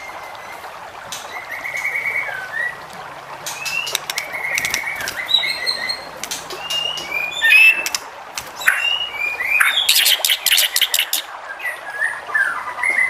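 White-rumped shama (murai batu) singing: varied whistled phrases that rise and fall, mixed with fast trills and sharp clicking notes, with a dense run of rapid clicks about ten seconds in.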